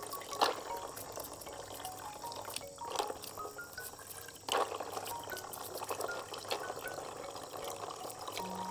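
Small toothbrush scrubbing land snail shells in a basin of water, with water sloshing and a few sharp clicks, the clearest about half a second, three and four and a half seconds in.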